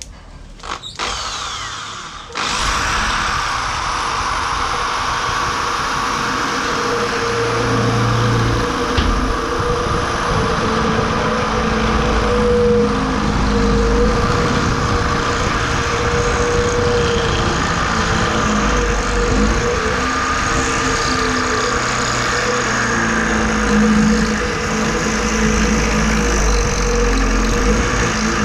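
Electric drill boring a hole through a wall, starting about two seconds in after a few light knocks, then running steadily under load.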